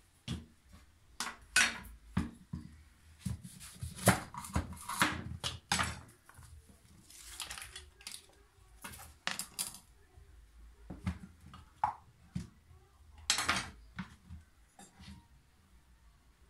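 Kitchen worktop handling sounds: irregular knocks and clinks of dishes, utensils and containers being picked up and set down, with a short rustle about halfway through.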